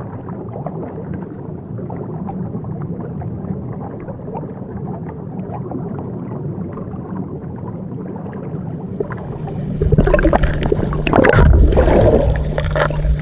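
Muffled underwater rush of water past a camera, then louder splashing and bubbling about ten seconds in as it nears and breaks the surface.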